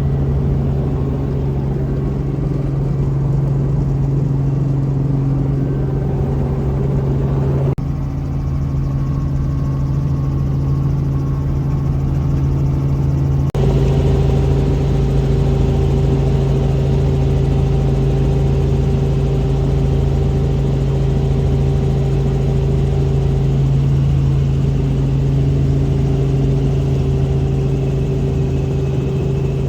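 Helicopter engine and rotor drone during a flight, a loud steady hum with no change in pitch. The sound jumps abruptly twice, about 8 and 13 seconds in.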